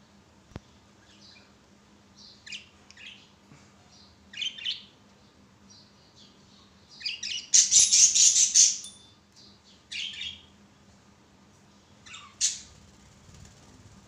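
Budgerigars chirping in short, high calls on and off, with a dense burst of harsh squawking, the loudest sound, about eight seconds in.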